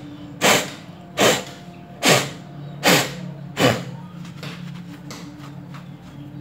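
Sandpaper rubbed on a metal starter-motor part to take off rust: five even rasping strokes, about one every 0.8 s, that stop about four seconds in, over a low steady hum.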